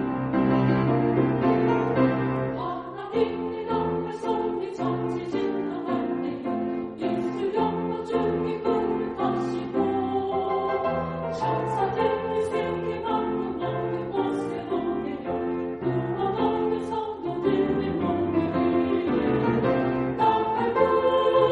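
Women's choir singing a sacred choral anthem in held chords, with piano accompaniment.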